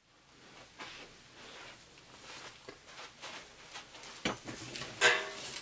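Handling noise of someone moving about at a table and settling in: faint rustling and light clicks, a sharp knock a little after four seconds in, then a louder scrape-like sound about five seconds in.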